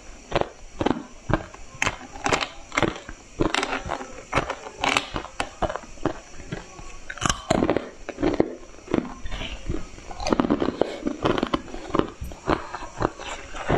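Close-miked crunching and chewing of coloured ice, with sharp, irregular crunches several times a second.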